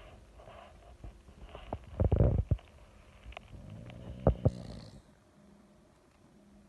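Dog snoring in its sleep: irregular snorts and droning breaths, loudest about two seconds in and again around four seconds in, quieter near the end.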